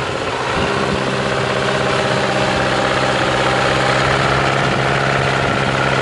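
GAZ-66 truck engine running steadily under load at a constant pitch as the truck pushes through deep snow; the engine note firms up about half a second in.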